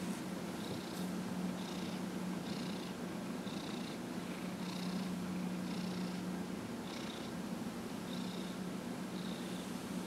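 Domestic orange tabby cat purring steadily while being massaged and stroked.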